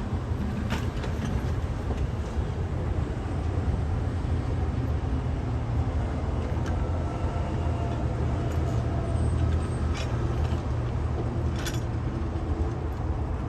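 JCB backhoe loader's diesel engine running steadily under work, with a few sharp knocks scattered through it.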